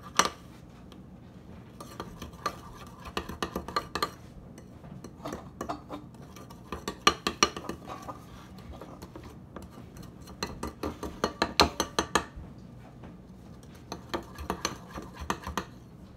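A utensil stirring and clinking against a bowl while mixing a thick conditioner and baking soda slime mixture, in four spells of quick taps and scrapes with short pauses between.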